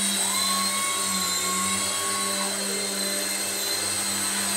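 Small electric coaxial RC helicopter in flight: its motors and rotors whir steadily with a high-pitched whine. The pitch shifts as it is steered, with one tone sliding down about two and a half seconds in.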